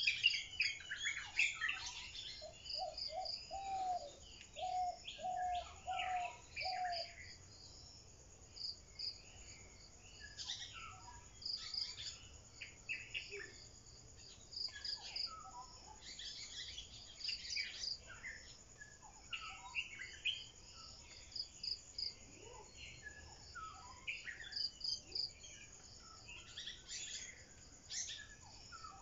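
Several birds chirping and calling, with a high, rapidly repeated trill recurring throughout and a run of about eight short, lower notes between about three and seven seconds in.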